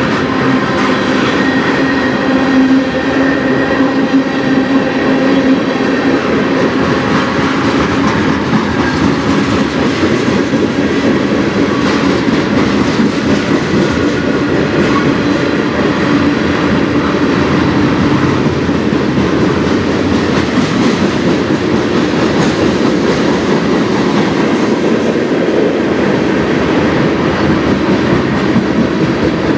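Canadian National freight train cars rolling past close by: a steady, loud rumble of steel wheels on the rails with rhythmic clickety-clack over the rail joints.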